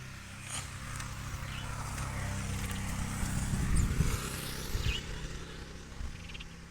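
A motor vehicle engine passing by, growing louder to a peak about four seconds in and then fading away.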